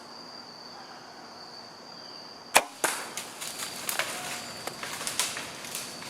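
A steady cricket trill, cut by the sharp snap of a bow shot about two and a half seconds in, with a second crack a moment later. It is followed by a few seconds of irregular crackling and rustling as the hit buck crashes off through dry leaves and brush.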